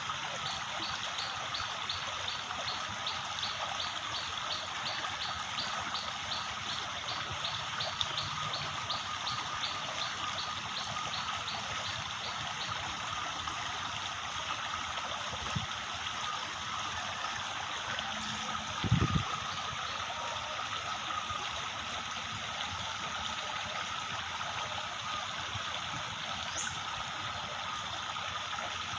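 Steady rushing and trickling of a stream. For the first twelve seconds or so a high, regular chirping runs over it at about three chirps a second. A single dull low thump comes about two-thirds of the way through.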